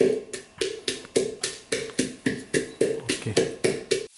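Pestle pounding garlic and chillies in a large wooden mortar: steady, even strikes, about four a second, each a hollow knock with a short ring. The pounding stops abruptly just before the end.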